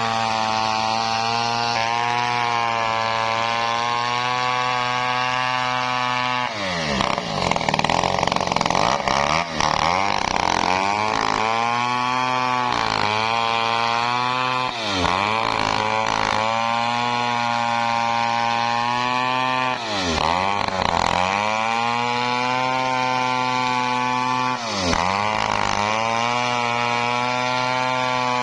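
Stihl 070 two-stroke chainsaw ripping lengthwise through a teak log. It runs at a steady high speed at first. From about six seconds in, its pitch swings as it cuts, and three times it drops sharply as the engine bogs in the wood, then climbs back.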